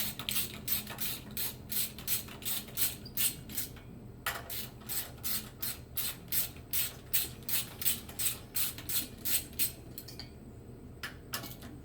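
Craftsman Max Access ratchet wrench clicking steadily, about four clicks a second, as it works a cylinder-head bolt, with brief pauses about four seconds in and near the end.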